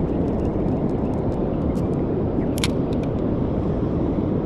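Steady low rumble of wind and surf at the shore, with a few faint ticks.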